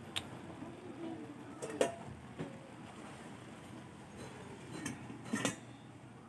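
A few light metallic clinks and knocks on a large aluminium pan as the food in it is moved, then a stainless steel lid knocking onto the pan about five and a half seconds in.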